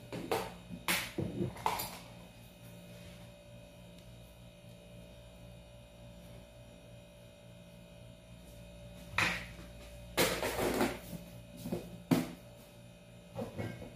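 Clatter and scraping of kitchen containers and utensils (a can, a scoop, a spoon in a ceramic bowl) in two short bursts, about a second in and around ten seconds in, over a steady hum.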